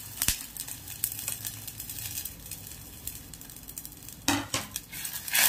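Water bubbling at a boil in a steel pot as roasted vermicelli goes in, with a sharp tap just after the start. Louder clatters of a metal utensil against the pot come about four seconds in and again at the end.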